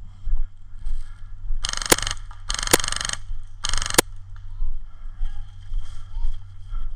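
Airsoft rifle firing three short full-auto bursts, the middle one the longest, with the mechanical rattle of the gun cycling.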